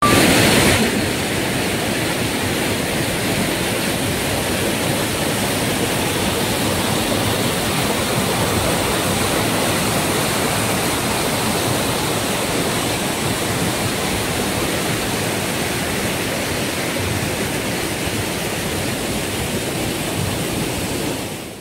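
Mountain stream rushing over rocks in a small waterfall: a steady rush of white water that fades out near the end.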